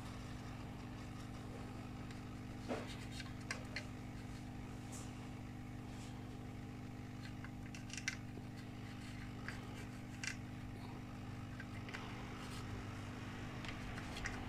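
Steady low electrical hum with a handful of faint, light clicks and taps as a soldering iron works components on a laptop motherboard.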